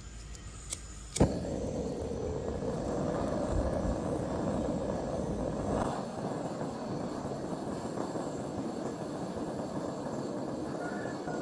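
Gas torch lit with a sharp click about a second in, then its flame burning with a steady hiss on the rusted clutch drum of an old chainsaw.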